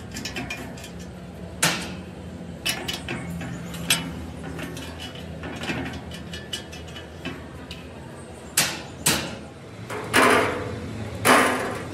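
Irregular metallic knocks, clicks and clanks of tools and metal parts being handled, with two louder, longer clattering bursts near the end.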